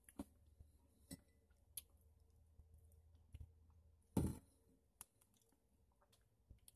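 Faint clicks and small mouth noises of a denture wearer chewing sticky candy, with one brief louder noise a little over four seconds in.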